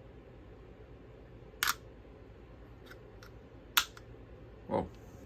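Two sharp clicks about two seconds apart as the DJI Osmo Mobile SE's magnetic phone clamp is fitted onto the gimbal's round mount, with a couple of faint ticks between them and a duller knock near the end.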